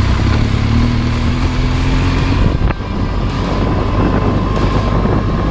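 BMW R1200GS boxer-twin engine running as the bike rides over a dirt track, with a sharp tick a little under three seconds in.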